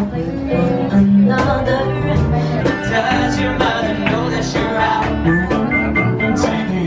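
Live band playing: a singer with guitar, bass and keyboard accompaniment.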